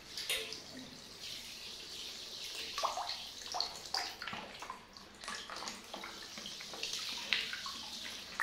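Water spraying from a handheld shower head into a basin of bathwater, with small splashes scattered throughout.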